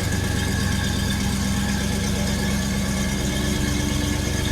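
American muscle car's V8 engine idling with a steady, even rumble; a faint higher tone joins it about three seconds in.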